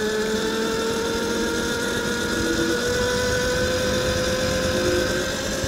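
Tuttio Soleil01 electric dirt bike's motor whining as it rides along, the whine rising slowly in pitch as it gathers speed, over a low wind rumble.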